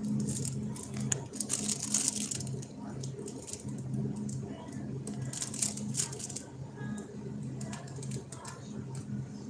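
Rustling and crackling close to the microphone, loudest about two seconds in and again about six seconds in, over a low steady hum that keeps breaking off and coming back.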